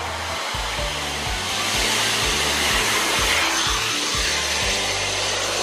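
A coach bus driving past on the road, its engine and tyre noise a steady rush that swells about two seconds in and stays loud. A regular low beat runs underneath.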